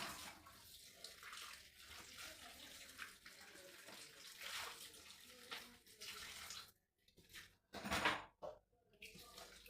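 Water running and splashing, uneven and stopping briefly a few times, with one louder splash or gush about eight seconds in.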